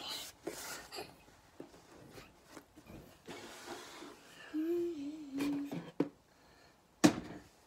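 Rustling and handling noises as the phone is moved about and a pair of denim shorts is put back in place, with a short wavering hum from a young girl about halfway through and one sharp knock near the end.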